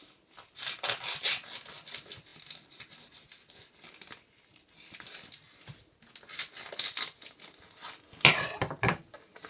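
Plastic bacon packet being slit with a knife and handled, crinkling and tearing in irregular bursts, loudest near the end.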